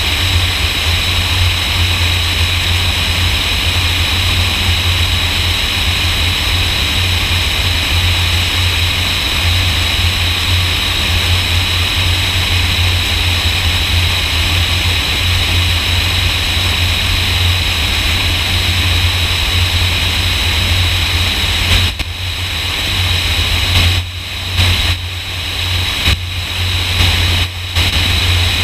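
Single-engine high-wing light airplane in flight: a steady low engine-and-propeller drone under a loud rush of wind. The rushing drops away briefly several times near the end while the low drone carries on.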